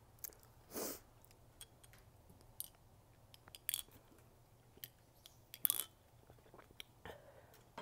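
Close-miked mouth sounds: chewing with small wet clicks and smacks, then sips from a glass Ramune soda bottle with short noisy bursts about four and six seconds in.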